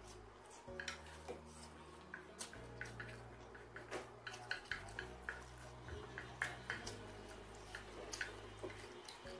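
Close-up mouth sounds of someone eating spicy instant noodles: a run of short wet smacks and clicks of chewing, a few a second, over a faint low hum.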